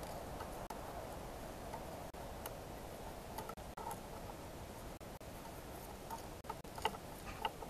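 Light metallic clicks and ticks as a feeler gauge blade and small steam-engine parts are handled, with a few sharper clicks near the end, over a steady faint background hum.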